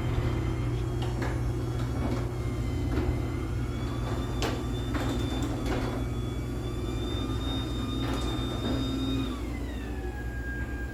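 LiftMaster 84505R belt-drive garage door opener running the door down: a steady motor hum with a high whine, which drops in pitch about nine seconds in as the opener slows and stops near the end of travel. Scattered clicks and knocks from the door and rail run alongside it.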